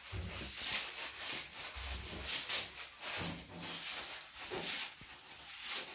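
Rough scraping strokes repeating irregularly, about two or three a second.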